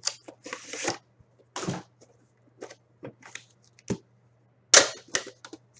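Sports card box and its packaging being opened and handled by hand: a string of short, separate rustling and cracking noises, the loudest and sharpest a little before the end.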